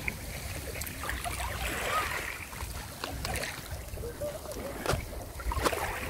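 Calm sea water lapping and murmuring gently at a pebble shore, with a few faint clicks and a light wind rumble on the microphone.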